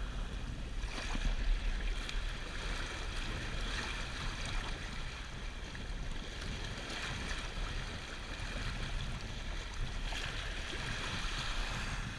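Water rushing and splashing along the hull of a sailboat under way, heard close to the waterline, with wind buffeting the microphone as a low rumble. The rush swells louder about a second in and again near the end.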